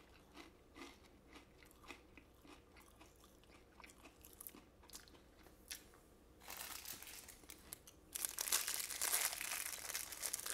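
Crisp crunching as a fortune cookie is chewed, in small, scattered crunches. From about six and a half seconds in, louder crackling and crinkling of a cellophane wrapper being handled.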